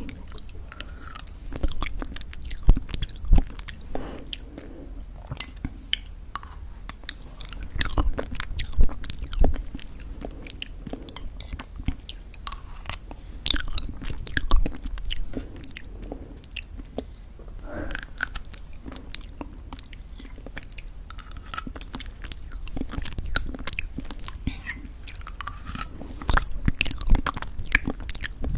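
Close-miked eating of thick yogurt: sticky, wet mouth sounds and lip smacks with many sharp clicks, coming in bunches every few seconds as each spoonful is taken.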